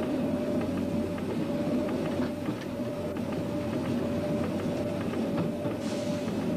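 Train running along the line, heard from the leading cab: a steady drone with a whine that swells and fades about every half second, and scattered clicks from the wheels over the track.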